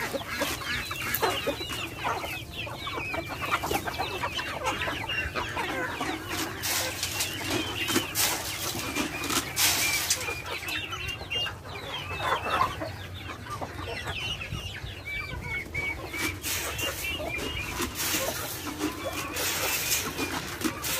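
A flock of backyard chickens clucking, with many short, high peeping calls from young birds scattered throughout and occasional sharp clicks.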